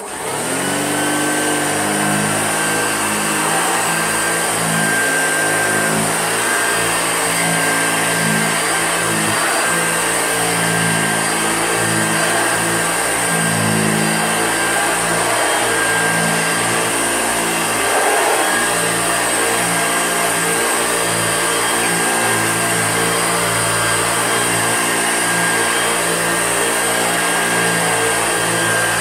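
Hoover Junior upright vacuum cleaner switched on: its motor spins up over the first second, then runs steadily with a high whine.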